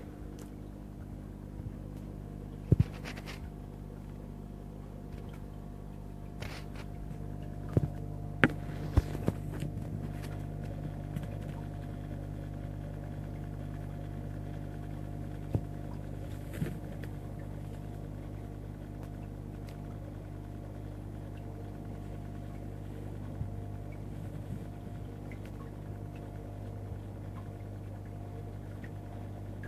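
Steady electrical hum of running aquarium pumps, with a faint hiss of water movement. A few short, sharp clicks stand out about three seconds in and again around eight to nine seconds in.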